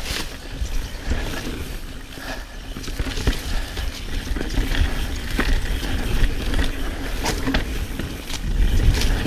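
Pivot Switchblade full-suspension mountain bike descending a wet trail: knobby tyres rolling over dirt and roots, with repeated rattles and knocks from the chain and frame over bumps, and a steady rumble of wind on the microphone.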